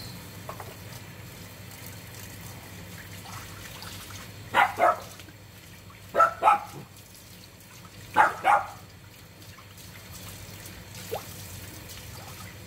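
Water from a garden hose trickling steadily, broken by three pairs of short, loud dog barks about two seconds apart.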